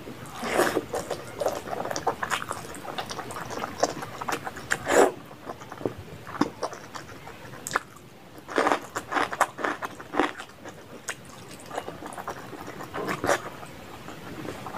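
Close-miked wet chewing and lip-smacking of a mouthful of rice and mutton curry eaten by hand, coming in bursts of smacks with short pauses between.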